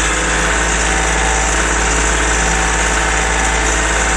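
Kioti CK3510SE compact tractor's diesel engine running steadily and loud, heard through the open cab door while the tractor creeps along at 1 to 2 miles an hour.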